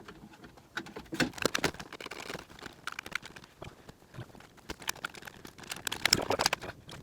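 Plastic dash trim and small parts being handled in a car interior: irregular clicks, knocks and light rattles, busiest about a second in and again near the end.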